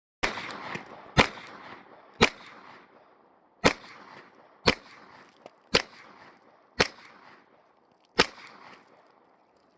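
A string of about eight gunshots fired at an even pace, roughly one a second, each followed by a short echo.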